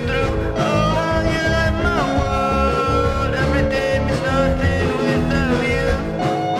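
Background music: a song with a sung or lead melody over a steady beat.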